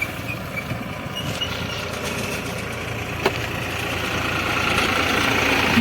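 Tractor diesel engine running steadily on the move, its low beating rumble growing louder toward the end, with one sharp click a little past three seconds in.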